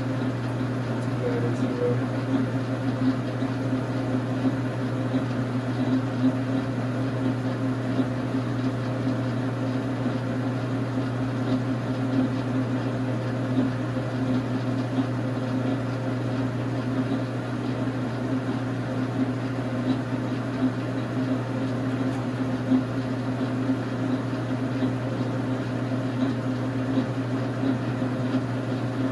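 Dar Sin 12x37 gap-bed metal lathe running steadily, its 220 V single-phase motor and spindle gearing giving an even hum that does not change.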